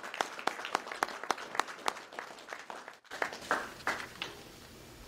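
Audience applauding, the claps thinning out and dying away about four seconds in.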